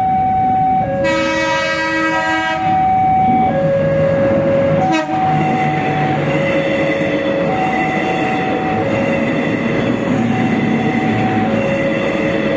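Level-crossing warning alarm sounding steadily, alternating between two tones about every second and a quarter. About a second in, the KRDE diesel-electric multiple unit's horn blows a chord for about a second and a half, then the train runs past with continuous wheel and engine noise and a sharp knock about five seconds in.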